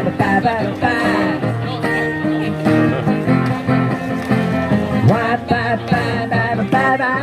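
Live strummed acoustic guitar with singing, the voice following a melody over steady chords.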